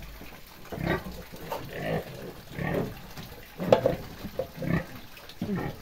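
Young pig grunting as it eats meal from a trough: short grunts about once a second.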